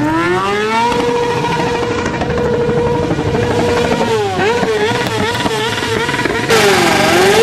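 Motorcycle engine revved up over the first second and held at high revs, then blipped down and up several times. Near the end a second, louder engine comes in and also revs.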